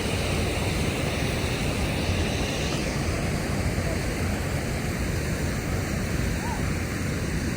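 A steady rushing noise with a rumble underneath, even throughout.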